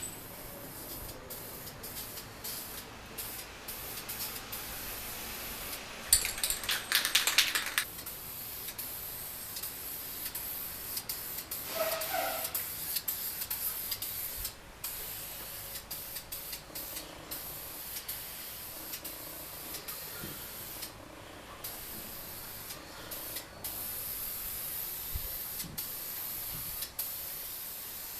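Aerosol spray can of matte black coating hissing in long bursts, with short breaks between passes as the nozzle is released.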